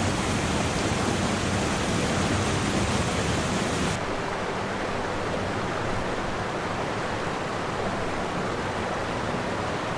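Steady rushing water. About four seconds in, the high hiss drops away and the sound becomes duller.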